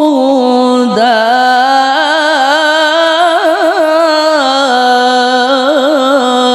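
A male Qur'an reciter (qari) chanting in one long held breath, drawing out a melismatic line whose pitch wavers and trills in ornaments without a pause.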